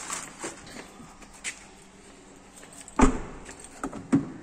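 A few small clicks and knocks, then a Toyota Glanza's car door thudding shut about three seconds in, followed by a smaller knock a second later.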